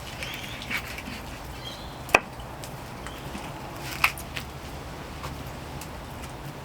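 A rabbit carcass being chopped up on a board: a few sharp chops, the two loudest about two seconds apart, with fainter taps between, over a steady low background.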